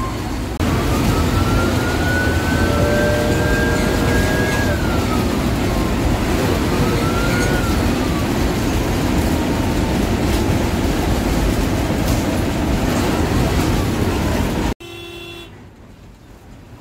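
A bus running on the road: loud, steady engine and road noise with a thin whine that rises and falls in pitch twice as the bus speeds up and eases off. Near the end the noise drops suddenly and a short horn toot sounds.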